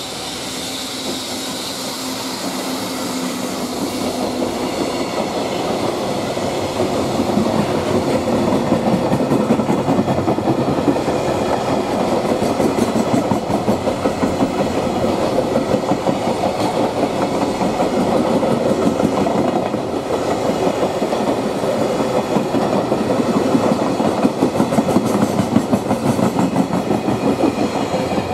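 Freight train of container flatcars hauled by an EF65 electric locomotive passing close by: a steady rolling rumble of steel wheels on rail with rapid clickety-clack over the rail joints, growing louder over the first several seconds and staying loud as the wagons go by.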